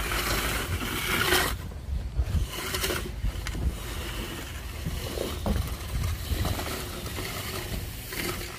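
Corrugated plastic drain pipe scraping and rustling as it is hauled along a trench, in a few noisy bursts, with light knocks, over a steady low rumble.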